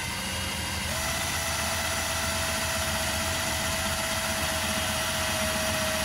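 Cordless drill running steadily under firm pressure, boring a pilot hole with a short, cut-down bit through a lining board into the van's inner panel. Its motor whine steps up in pitch about a second in, then holds steady.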